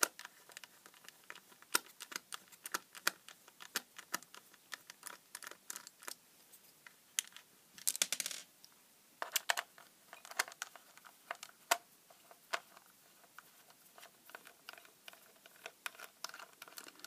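Small precision screwdriver clicking and scraping in the screws of a plastic Amecal ST-9927T multimeter case as they are undone, with light handling knocks of the meter. A longer scrape about eight seconds in.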